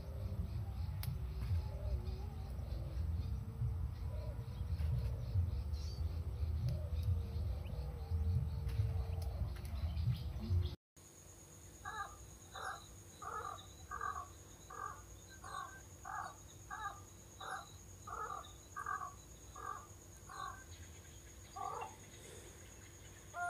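A loud low rumble for the first half. After a cut, a bird calls over and over, about one and a half calls a second for some nine seconds, then twice more near the end.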